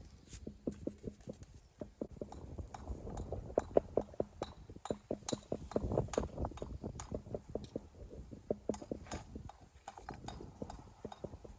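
Stonework knocks and clinks: many short, hard strikes of stone on stone or hammer on stone, several a second in an uneven rhythm.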